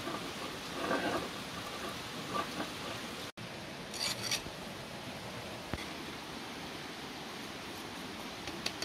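Hand-held stone grinding spice seeds against a flat stone slab: a gritty scraping about a second in and again briefly near two and a half seconds. About four seconds in comes a short dry rustle as the crushed seeds are swept together on the stone, all over a steady outdoor hiss.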